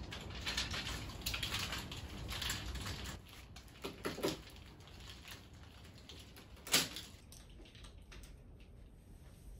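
Dry laundry rustling as it is pulled off a plastic pinch hanger, with the plastic clips clicking and one sharp snap about two-thirds of the way in.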